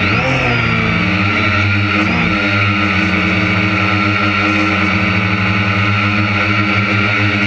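Harvest machinery running steadily: an engine drone with steady whining tones above it, and brief pitch swoops just after the start and again about two seconds in.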